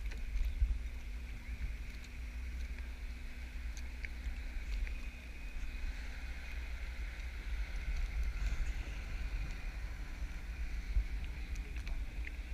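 Wind rumbling on the microphone over sea water and kayak paddling, with a few small splashes or knocks.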